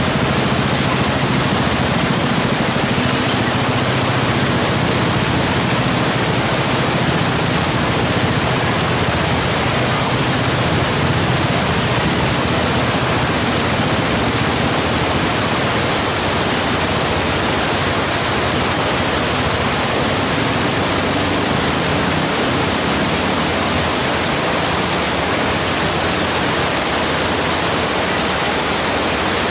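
Fast, shallow river rushing over rocks: a steady wash of water noise that holds even throughout.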